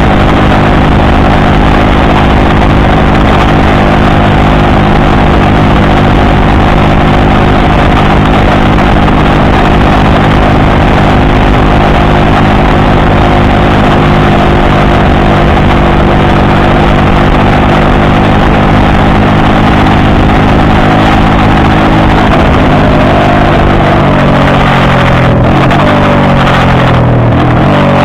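Exhaust of a small Honda 49cc single-cylinder four-stroke moped running on the road through a short 小鉄管 pipe with its silencer baffle fitted. The engine holds a steady speed, then its pitch falls over the last several seconds as it slows.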